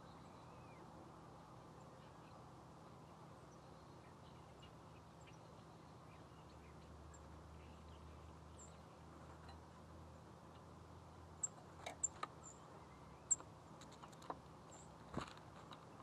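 Faint, short, high-pitched chips from small songbirds around the feeder, scattered through the second half, with a few sharp clicks or taps in the last five seconds over a faint steady hum.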